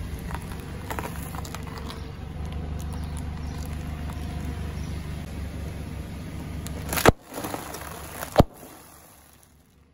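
A car rolling slowly with a steady low rumble and scattered small crunches as its tyre goes over small hard candies, then two sharp loud pops about a second and a half apart as sealed bags of potato chips burst under the tyre.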